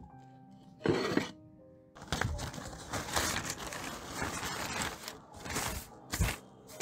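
Large sheet of brown paper crinkling and rustling as it is unfolded and smoothed by hand, in loud irregular bursts, over background music.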